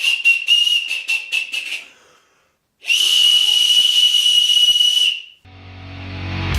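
Homemade wooden dowel whistle blown shrill and loud, first in a fast run of short toots about five a second, then after a brief pause in one long steady blast of about two seconds. Music with a low rising drone fades in near the end.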